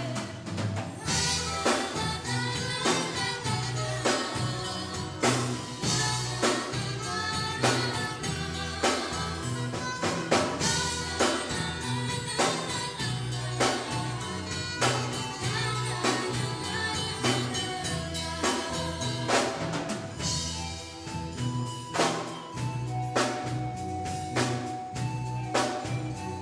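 Live band music: a drum kit keeps a steady beat over a pulsing bass line, with singing and saxophone melody.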